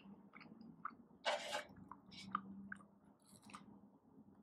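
Close-miked mouth sounds of a person chewing garlic naan and curry: soft wet smacks and clicks at an uneven pace, with one louder burst of noise about a second and a half in.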